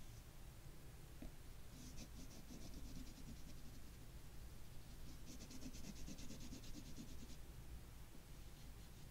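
Oil pastel stick scratching across paper in quick back-and-forth shading strokes, faint and papery. There are two runs of scribbling: a short one about two seconds in and a longer one about five seconds in.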